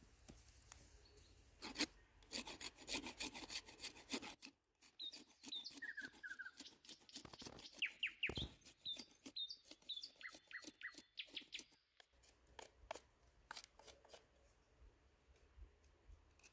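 Knife blade scraping and shaving the bark off a freshly cut wooden stick in quick repeated strokes. Birds chirp in the background in the middle of the stretch.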